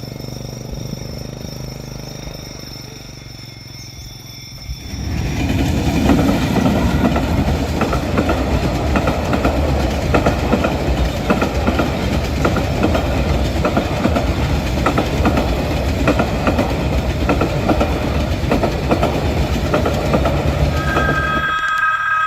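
A train passing over a level crossing: a loud steady rumble with the regular clickety-clack of wheels over rail joints, starting suddenly about five seconds in after a quieter stretch. Near the end the rumble stops abruptly and a steady high train-horn tone begins.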